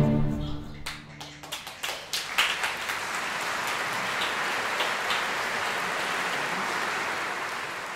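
A string ensemble's final held chord dies away about a second and a half in. Applause follows: a few scattered claps thicken into steady clapping, which begins to fade near the end.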